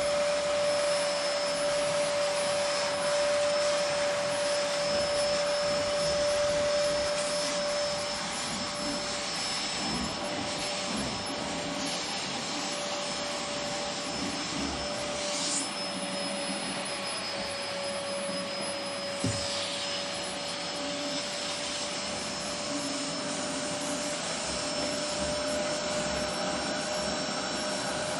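Vacuum cleaner running with a steady whine over a rushing airflow as it cleans stairs, its pitch sagging slightly for a few seconds in the middle, with a few brief scrapes and one small knock about two-thirds of the way through.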